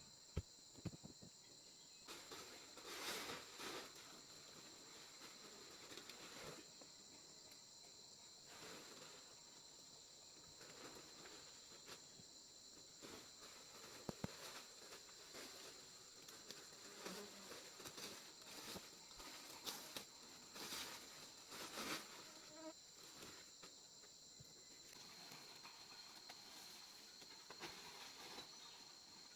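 A faint, steady high-pitched insect chorus, with scattered soft rustles and knocks over it.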